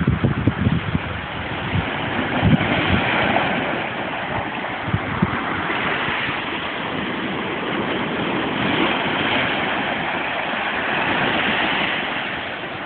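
Ocean surf washing over and around shoreline rocks: a steady rush of foaming water that swells and eases as each wave comes in. A few low thumps of wind buffet the microphone in the first few seconds.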